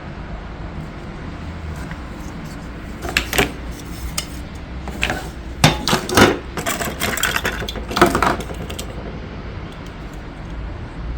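Hard plastic toy track pieces and parts being handled, with a run of sharp clicks and clatters over a few seconds against a steady low hum.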